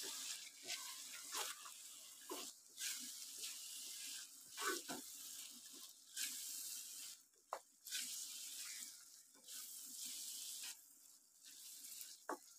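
Boiled chana dal being sautéed (bhuna) in a spiced tomato masala in a wok, sizzling faintly as it is stirred and tossed, with short scrapes of the spatula against the pan now and then.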